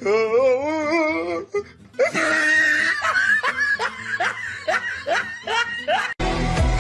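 Laughter: a long, wavering laugh, then a run of short rising laughs about two a second. About six seconds in it cuts abruptly to electronic music with a steady beat.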